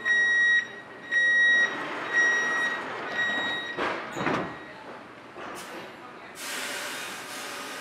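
Door-closing warning beeps on a Munich U-Bahn train, a high beep about once a second, growing fainter. About four seconds in, the sliding doors run shut with a brief rush, and a steady hiss starts near the end.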